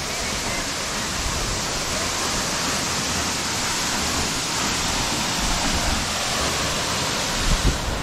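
Steady rush of a waterfall pouring down a cliff into its plunge pool.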